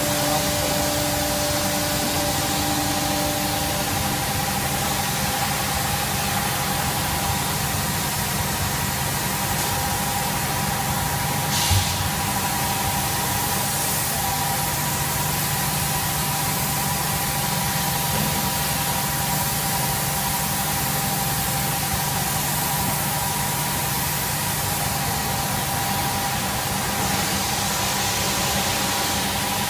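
Steady running noise from motorcycle tire vulcanizing press machinery: an even hiss over a low hum, with two steady whining tones. There is a single knock about twelve seconds in.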